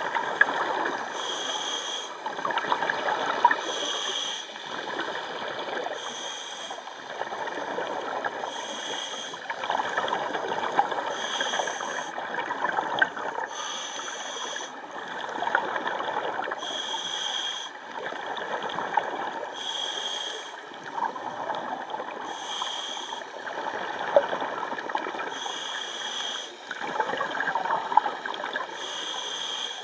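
Scuba diver breathing through a regulator underwater: a regular cycle of hissing and gurgling bubbles, about one breath every two to three seconds.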